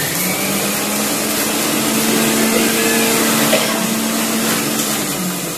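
Electric mixer grinder running with its small steel jar, grinding green chillies, shallots and salt into a chutney paste. The motor spins up right at the start, runs steadily, and begins to wind down near the end.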